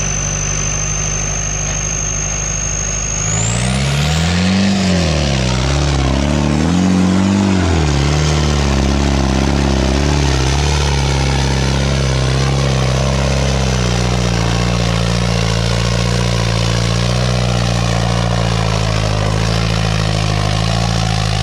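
Farmtrac 6055 tractor engine, its air-cleaner cap removed, idling steadily, then revved up and down twice and held at high revs. A high whine climbs away as the revs first rise, about three seconds in.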